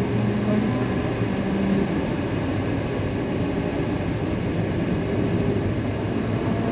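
Car tyres rolling over the grooved strips of the Route 66 musical highway, giving a low humming tone for the first couple of seconds over steady road rumble. The rest is plain tyre and road noise inside the car.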